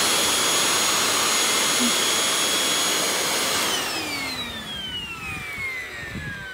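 Milwaukee cordless handheld vacuum running with a steady high whine while clearing metal chips from a freshly drilled hole. A little over halfway through it is switched off, and its pitch falls steadily as the motor spins down.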